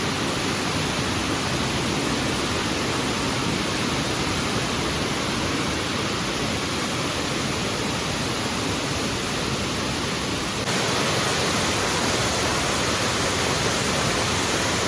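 Medium-sized monsoon-fed waterfall pouring over rocks into a shallow pool: a steady rush of water. The level steps up slightly about ten seconds in.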